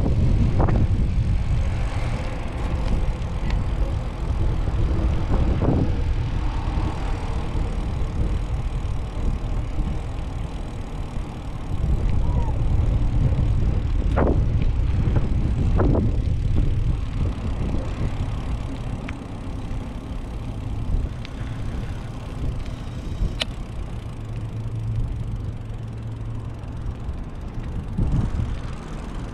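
Wind buffeting the camera microphone during a bicycle ride, a heavy uneven rumble, with a few sharp clicks in the middle.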